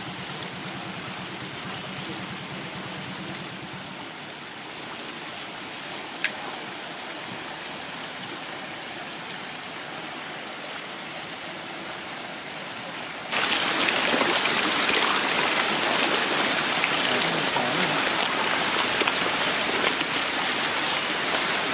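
Pond water splashing and rippling as a dense crowd of koi churns the surface. A steady rushing splash that turns suddenly louder a little past halfway.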